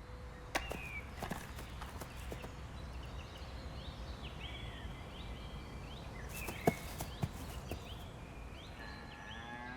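Forest ambience: a low steady background with several sharp cracks like footsteps on twigs, and a series of short, repeated bird chirps.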